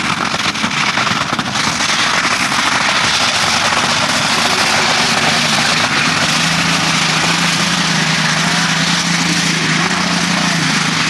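Pulling tractor's turbocharged, alcohol-fuelled engine running at full power under the load of the weight sled, loud and steady, with a steady low drone coming in about halfway through.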